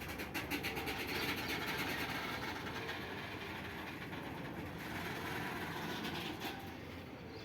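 Goods train passing, its wagon wheels rolling over the rails with a steady rumble and a run of rapid clicks in the first second.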